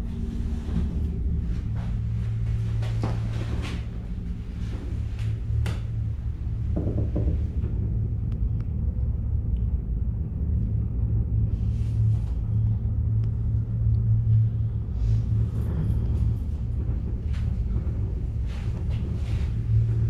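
Steady low rumble inside a moving gondola cabin, with a few faint clicks and creaks scattered through it.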